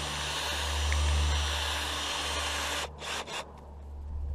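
Cordless drill running as it bores out the screw holes in a plastic LED marker light housing. It stops almost three seconds in, then gives two brief bursts.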